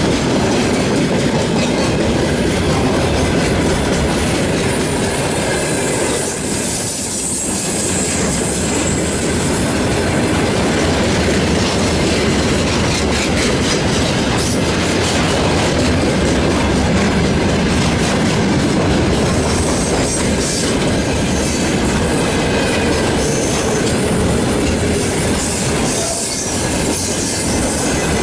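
Freight train hauled by a VL80S electric locomotive passing close by: a loud, steady rumble and clatter of wagon wheels over the rails, with some high wheel squeal.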